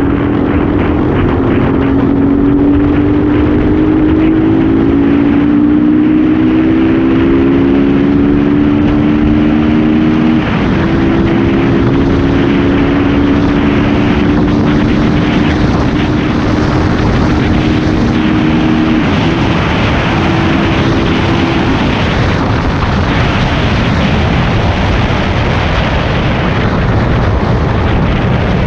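Yamaha R15 v2.0's single-cylinder engine, breathing through a K&N air filter, pulling under acceleration. Its note climbs, drops suddenly at a gear change about a third of the way in, climbs again, then falls away. Heavy wind rush on the camera microphone runs throughout and covers the engine over the last third.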